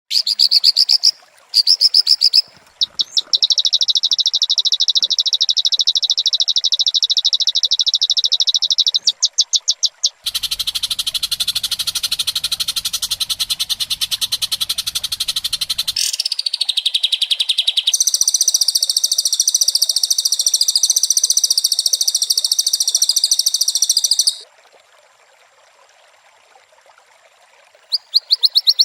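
White-rumped shama (murai batu) singing in long runs of very fast, buzzing high trills, with a louder, harsher rattling run around the middle and a high buzzing run that stops abruptly, then a few seconds of quiet before the trills start again near the end.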